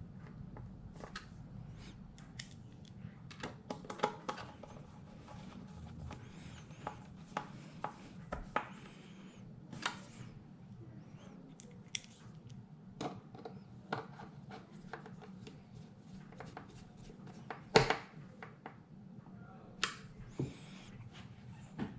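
Hands working on a computer's plastic housing and parts: scattered small clicks, taps and light scraping, with one sharper click about 18 seconds in, over a low steady hum.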